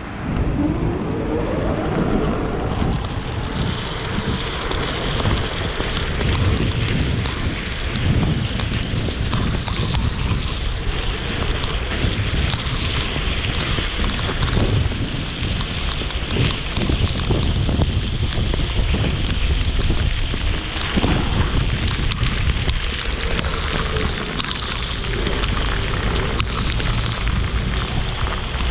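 Wind buffeting the microphone and the hiss of tyres on a rain-soaked road as a Weped Fold electric scooter is ridden, with a faint rising whine from its hub motors about a second in as it picks up speed.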